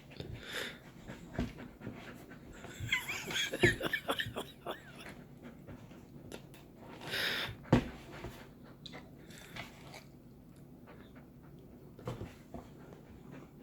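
A golden retriever panting and breathing hard while playing, with scattered soft knocks and scuffles. There are a few short high squeaks about three to four seconds in.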